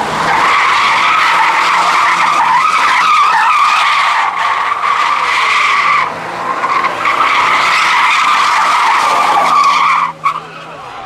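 Tyres screeching loud and continuously as a 3.2-litre V6 Vauxhall Omega limousine drifts, with its engine audible faintly underneath. The screech breaks briefly about six seconds in, resumes, then stops abruptly about a second before the end.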